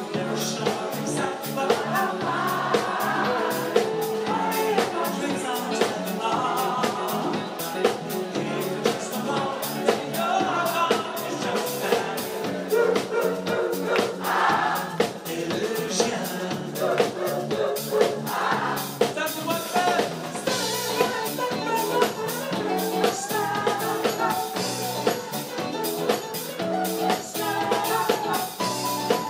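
Live soul-funk band: a male lead singer over a drum kit and electric bass, with a steady beat of drum hits throughout.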